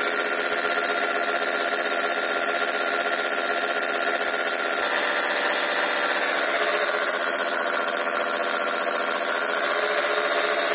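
Two small vibration motors fixed to a small enamel pot, run in parallel at 5 volts with the pot pressed against a wall, making a loud, steady, drill-like buzz.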